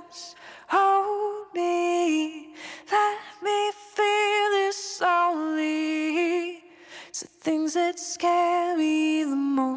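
Background song: a woman singing a slow melody of long held notes, with short breaks between phrases.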